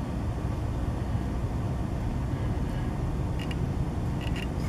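Steady low outdoor rumble, with a couple of faint short high chirps or clicks near the end.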